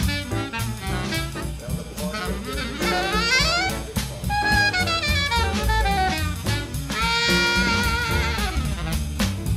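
Jazz background music: a horn melody with sustained, wavering notes over a drum kit keeping a steady beat.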